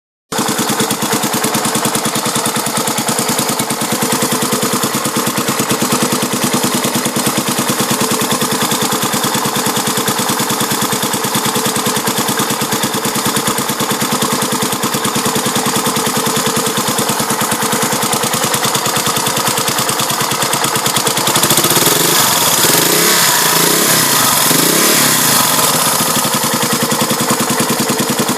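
1981 Yamaha XT250 single-cylinder four-stroke engine running at idle with a rapid, steady clacking, revved in a few short blips about three quarters of the way through. The clack persists with the valves adjusted and the cam chain tensioned, and its cause is not yet found.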